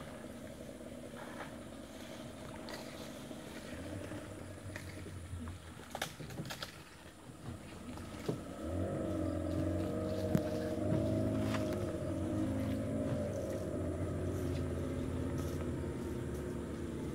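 An engine running steady and unchanging, coming in about eight seconds in and then the loudest sound. Before it, only faint outdoor background with a few sharp clicks.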